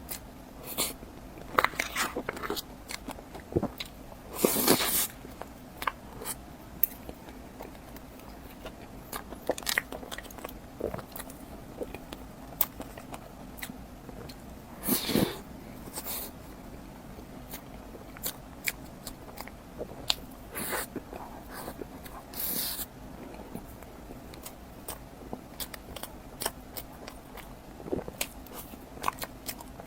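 Close-miked eating sounds: bites and chewing, with scattered sharp wet clicks and smacks of the mouth and a few longer noisy sounds of up to about a second.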